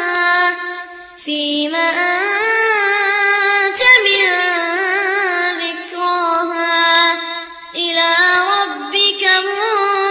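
A single high voice singing an unaccompanied, ornamented melody with smooth gliding notes, pausing briefly about a second in and again near the end.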